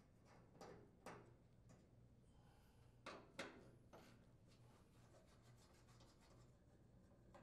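Near silence, with faint scraping and a few light clicks of a Phillips screwdriver turning screws out of a gas range's sheet-metal top, the sharpest ticks about a second in and at about three seconds.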